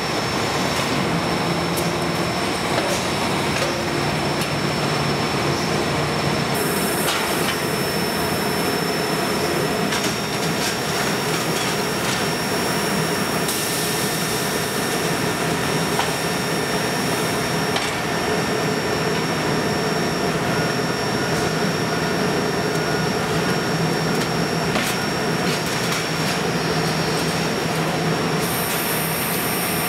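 Steady, loud machinery noise of a heat-treatment furnace line, with a faint high whine and occasional metallic clicks and clanks.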